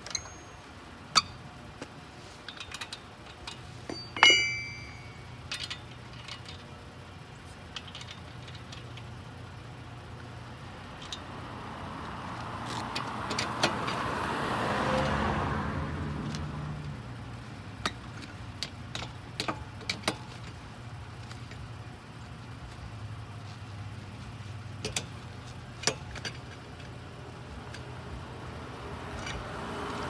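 Metal clicks and clinks of a four-way lug wrench on a wheel's lug nuts as the wheel is put back on, the loudest clink about four seconds in with a short ring. A vehicle passes in the middle, rising and fading over about five seconds.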